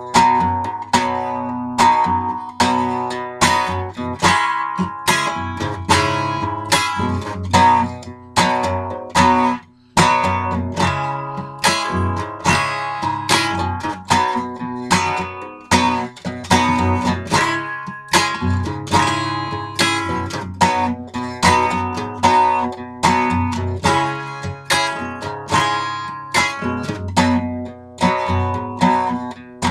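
Acoustic guitar strummed in a steady rhythm, an instrumental break between sung verses, with a brief gap about ten seconds in.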